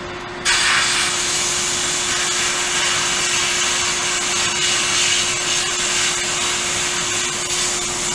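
Sandblasting cabinet in use: the blast gun's hiss of compressed air and abrasive starts about half a second in and runs steadily, stripping old paint and rust off steel boom pulleys. A steady hum with one constant tone runs underneath.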